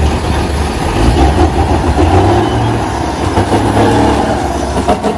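Heavy diesel engine of a loaded Mack dump truck running under load as it pulls away, with a steady low rumble.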